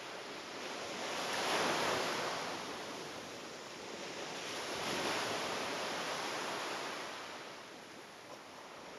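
Rushing noise, like surf washing in, that swells and fades twice: loudest about a second and a half in, and again around five seconds.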